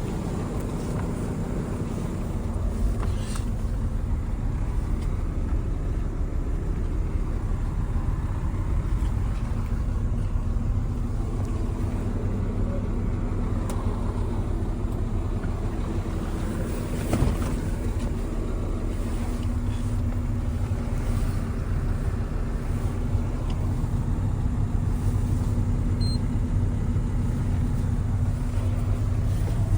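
Doosan DX300LC-5 hybrid excavator's diesel engine running steadily with a low hum, with one short sharp knock about 17 seconds in.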